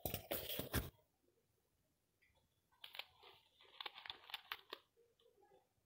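Handling noise from a wired earphone's inline microphone: rustling and clicking as it is fingered, loudest in the first second, then softer crackles and clicks from about three to five seconds in, with a silent gap between.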